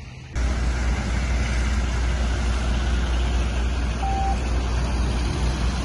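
Diesel engine of a MAN fire-brigade truck running as it drives past, a steady low rumble with a wide hiss over it that starts suddenly at a cut just after the start. A short beep sounds about four seconds in.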